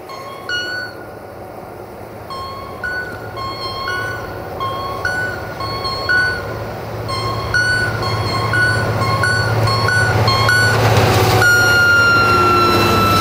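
CFR Class 64 diesel-electric locomotive hauling a passenger train, approaching and passing close, its engine and wheel rumble growing steadily louder. Over it comes a repeating two-note electronic beeping, a lower then a higher note about every half second. Near the end a long held high tone starts as the locomotive passes and drifts slightly down in pitch.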